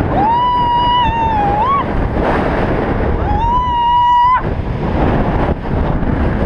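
A woman screaming twice in long, high, held cries, the second cut off sharply, over a loud rush of wind on the microphone as she falls on a bungee cord.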